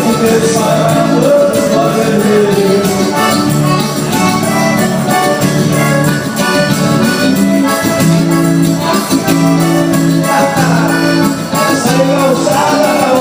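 Band music with a steady beat, sustained low notes and a gliding melody line over them near the start and again near the end.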